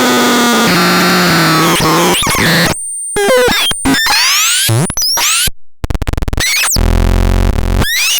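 Electronic synthesizer playing a demo of its sounds. Held buzzy tones step down in pitch, then a run of fast rising pitch sweeps and chirps cuts in and out abruptly, and a loud low buzzing drone with noise sounds near the end.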